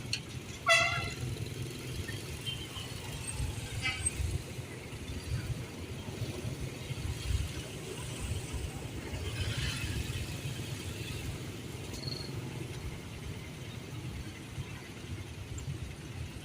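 Road traffic going by with a steady low rumble, cut by a short vehicle horn toot about a second in and a fainter toot near four seconds; a vehicle passes more loudly around ten seconds.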